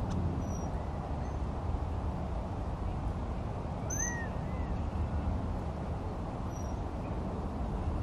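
Quail giving a soft, arched contact call about halfway through, with a fainter second call just after and a few brief high chirps, over a steady low rumble.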